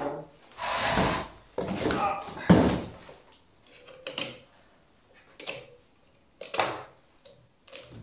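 Handling noises as a composite gas cylinder and its cardboard box are shifted across a concrete floor: three scrapes and knocks in the first three seconds, the loudest just before the three-second mark. These are followed by four lighter clicks as hands work at the cylinder's valve and the gas hose.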